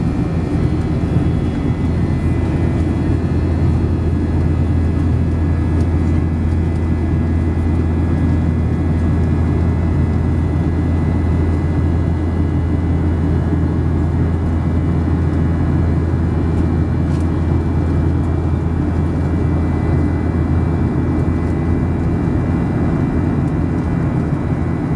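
Loud, steady cabin drone of a Boeing 737-700 in flight, heard from a window seat beside the wing: the CFM56-7B engines and airflow make a low hum, with faint steady whining tones above it.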